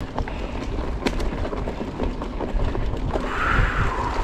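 Mountain bike being ridden, heard through an action camera's microphone: a low wind rumble with scattered knocks and rattles from the bike. A brief higher-pitched noise comes about three seconds in.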